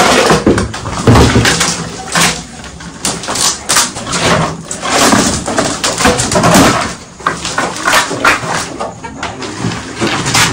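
Bamboo slats of a raised platform clattering and knocking as they are pried up and pulled apart by hand, with many irregular sharp knocks.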